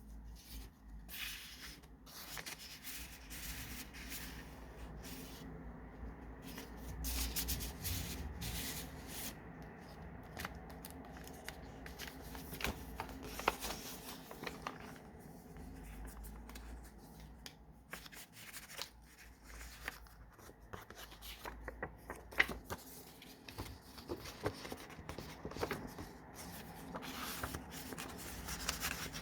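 Paper pages and card inserts of a handmade junk journal being turned and handled: irregular rustling and rubbing with many small taps and flicks.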